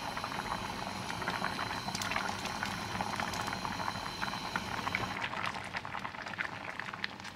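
Pot of rice parboiling at a rolling boil, a steady bubbling with many small pops that softens slightly after about five seconds.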